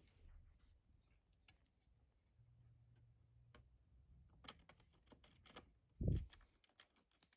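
Faint clicks and taps of small parts being handled, with one dull, low thump about six seconds in.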